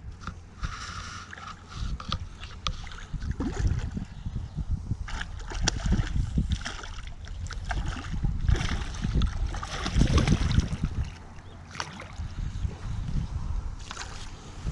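Gusting wind rumbling on a body-worn camera microphone, with brief rustles and knocks of handling.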